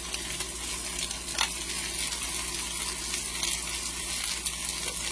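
Sliced potatoes frying in oil in a pan: a steady sizzle with a few sharp pops and crackles.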